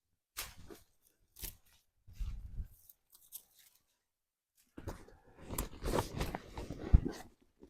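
Camping gear being handled and unpacked: scattered rustling and crunching in short bursts, getting busier about five seconds in, with one sharp click near the end.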